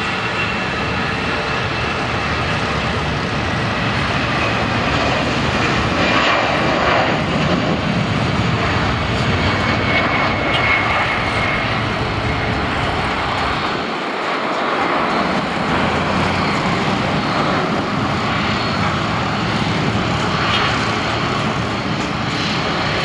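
Twin CFM56-5B turbofan engines of an Airbus A319-111 at takeoff thrust: a loud, steady jet engine noise with a faint thin high whine over it, as the airliner takes off and climbs away.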